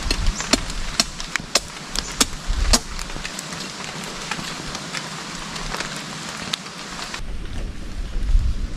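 Rain falling steadily, with scattered sharp crackles and ticks, most of them in the first three seconds. The rain hiss eases a little after seven seconds.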